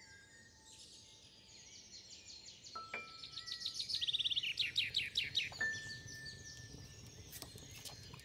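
Birdsong: a scatter of high chirps building into a fast, loud trill of repeated calls about halfway through. Under it, a few single ringing notes from the ensemble, each struck and left to sustain.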